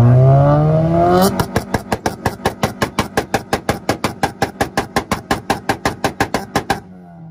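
A car engine revved up to a two-step launch limiter and held there, the exhaust popping and banging rapidly, about eight times a second, as the limiter cuts the ignition. Near the end the throttle is released and the engine falls back toward idle before revving again.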